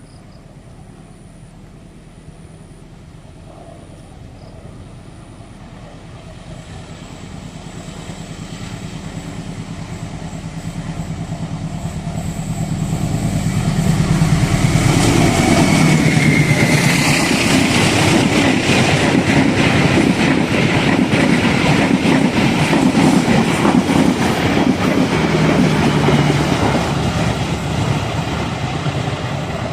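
Diesel-hauled train approaching and passing close by. The engine drone and rail noise build steadily for about fourteen seconds, then hold loud with rapid wheel clatter on the rails.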